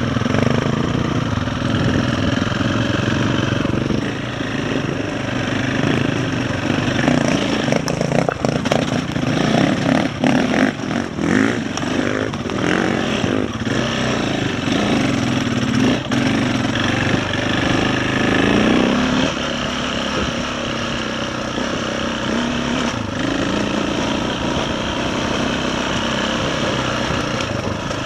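KTM 525 dirt bike's single-cylinder four-stroke engine running under changing throttle while riding a dirt and rocky trail. A run of knocks and rattles comes through the middle as the bike goes over rough, stony ground.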